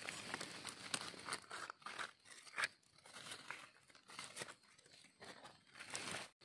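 Dry leaf litter crackling and rustling as a hand digs through it and picks a mushroom button from the forest floor: faint, irregular crackles and snaps.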